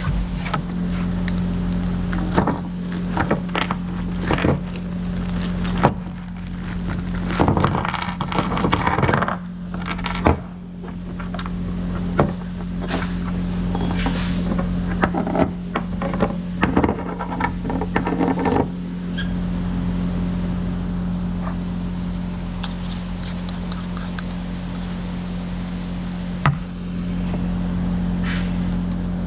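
Metal hardware being handled: repeated clinks, jangles and scrapes of steel bolts and fasteners, clustered in the first two-thirds, over a steady low hum. Later there is mostly the hum, with a single knock near the end.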